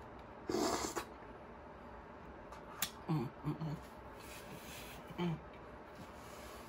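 A wet slurp from a spoonful of melting vanilla Frosty about half a second in, then a sharp click and a few short hummed "mm" sounds of enjoyment.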